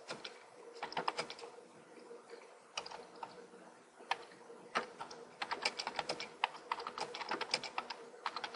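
Typing on a computer keyboard: irregular keystroke clicks, sparse for the first few seconds, then a quicker, steadier run of typing from about halfway, over a faint steady hum.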